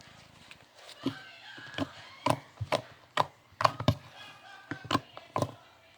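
Irregular sharp knocks and clicks, about a dozen, starting about a second in, like small objects being handled and set down on a hard surface.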